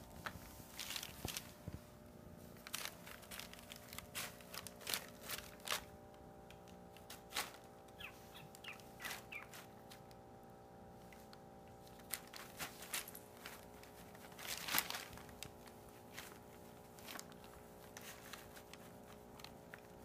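Crumpled brown packing paper crinkling and rustling in irregular short bursts as a ragdoll kitten rolls and plays on it while being petted, with the loudest crackle about three quarters of the way through.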